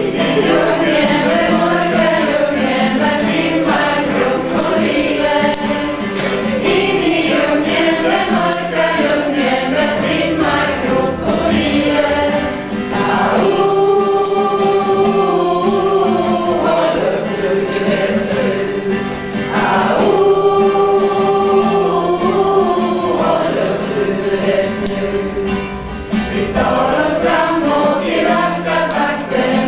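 Background music: a choir singing, twice holding long sustained notes partway through.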